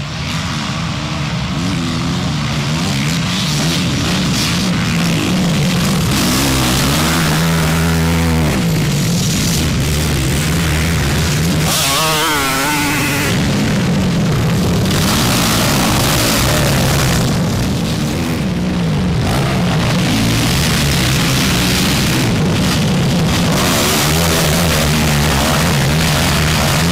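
Several motocross dirt bike engines revving hard as the bikes race past, the engine pitch rising and falling with throttle and gear changes. Their character shifts abruptly every few seconds.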